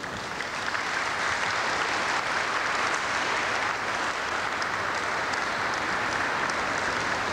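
Audience applauding, the clapping swelling in right at the start and then holding steady.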